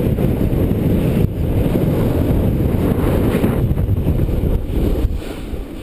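Wind buffeting the microphone of a helmet-mounted camera during a downhill snowboard run: a loud, steady low rumble that eases off a little near the end.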